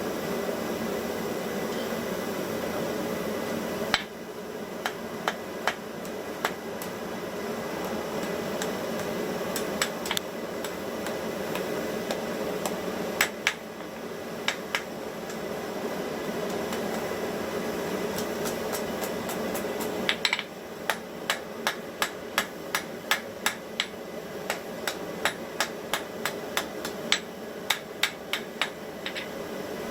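Hand hammer striking a steel bar on an anvil while a small hook handle is forged onto the end of a Damascus billet. A few scattered blows come first, then a steady run of about two blows a second through the last ten seconds, over a constant background rush.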